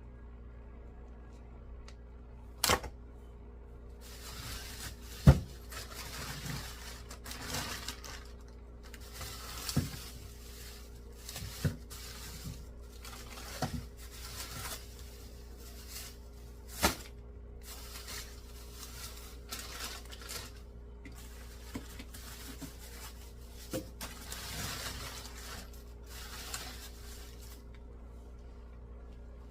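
Household items being handled and moved about: irregular knocks and clatters mixed with short bursts of rustling packaging, the sharpest knock about five seconds in, over a steady low hum.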